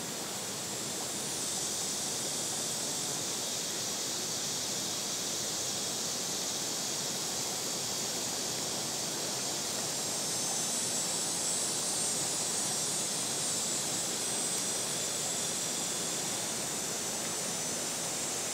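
Cicadas calling: a continuous high, buzzing drone that swells about a second and a half in and stays steady.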